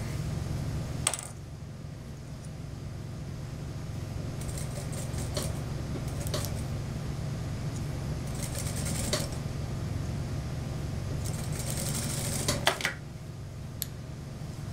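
Industrial single-needle lockstitch sewing machine stitching mink fur, its motor humming steadily with clusters of sharp mechanical clicks. The hum drops a little after a click about a second in and again near the end, as the machine stops.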